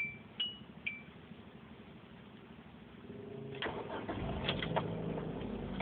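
A car's dashboard warning chime pings a few times in the first second. After a quiet spell, the engine cranks with a few clicks, catches about four seconds in and settles into a steady idle. This is a car with a starting fault that earlier would not turn over.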